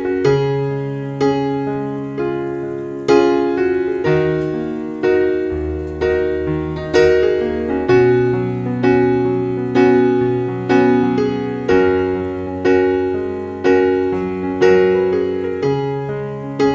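Background piano music: a slow, gentle piece with a new note or chord struck about once a second, each one fading away before the next.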